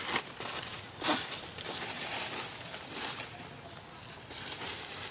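Short rustles in dry leaf litter, several of them about a second apart.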